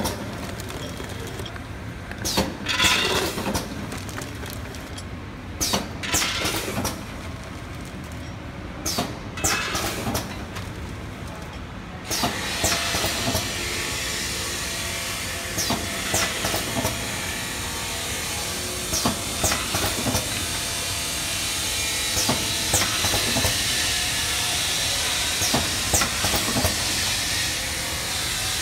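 A peanut packing machine running. At first there are intermittent rattling bursts as shelled peanuts move through its stainless steel hopper. About twelve seconds in, a steady hiss of compressed air takes over, with sharp clicks and clacks every second or so from the pneumatic sealing and cutting cylinders as the bags are formed and filled.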